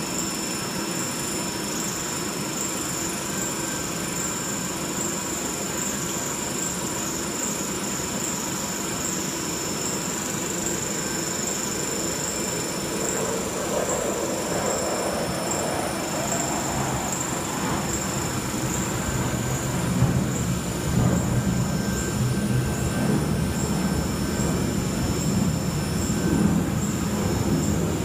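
Plastic zipper extrusion machine for pouches running, a steady machine drone with a constant high whine. The low rumble grows louder and rougher in the last third, with a few bumps.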